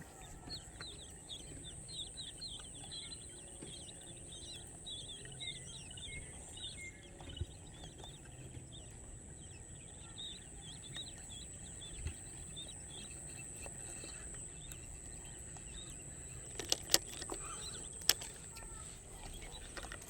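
Small birds chirping in rapid, busy runs that thin out after about twelve seconds, over a steady high-pitched tone and a low outdoor rumble. Two sharp clicks come near the end.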